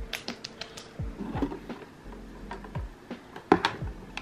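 Clicks and knocks of a small plastic skincare mini fridge being opened and jars inside being handled, the loudest knock about three and a half seconds in. Soft background music with a low beat about once a second runs underneath.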